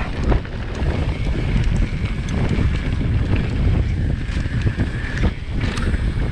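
Wind buffeting the microphone of a mountain bike rider's camera while riding, a steady low rumble mixed with tyre noise over grass and tarmac, with a few sharp clicks and rattles from the bike.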